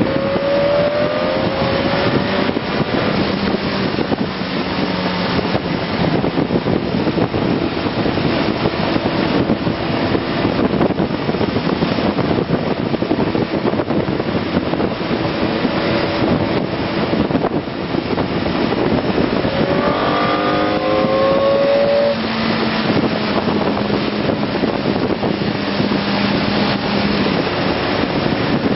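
BMW K1200S inline-four motorcycle engine under way, heard through heavy wind rush on the microphone. About twenty seconds in, the engine note climbs sharply as the bike accelerates, then holds steady.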